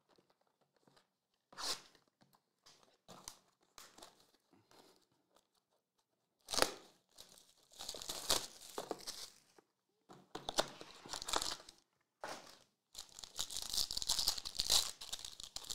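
Foil trading-card pack wrapper being torn open and crinkled, in a few short bursts that run into a longer stretch of crinkling near the end. Light ticks of cards being handled come before it.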